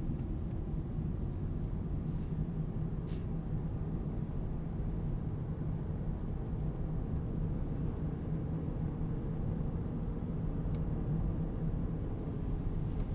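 A car driving slowly, giving a steady low rumble of engine and tyres, with two faint clicks about two and three seconds in.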